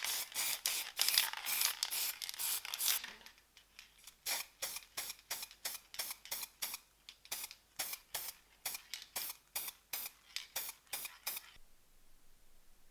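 Aerosol spray-paint can hissing: a few seconds of dense spraying, then short puffs at about two to three a second that stop near the end.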